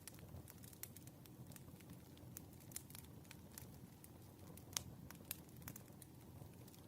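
Wood fire crackling softly: irregular sharp pops and snaps, several a second, the loudest just under five seconds in, over a low steady rumble of the burning logs.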